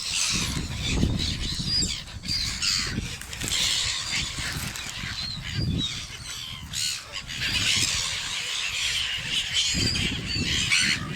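A flock of seagulls squawking, with many short cries overlapping one another, over a low rumble.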